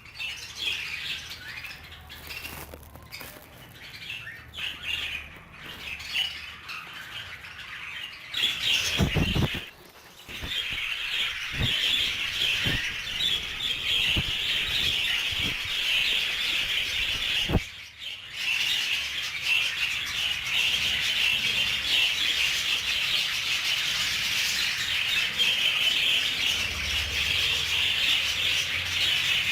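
Flock of budgerigars chattering and warbling continuously, with a couple of low knocks about nine and eighteen seconds in.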